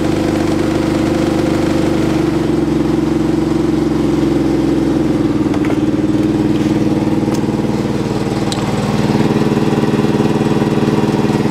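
LP (propane) fuelled Caterpillar forklift engine running steadily just after a cold start at about 10°F, a little louder near the end.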